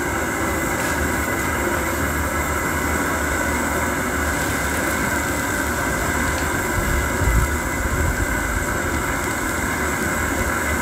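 Steady roar of a propane camp-stove burner running under a pan of simmering soup. A wooden spoon stirs the pan in the second half.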